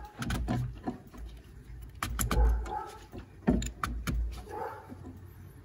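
Hands working the diesel fuel filter assembly, turning it round once or twice more to seat it. Clusters of clicks and knocks come near the start, about two seconds in and again around three and a half seconds in, then it goes quieter.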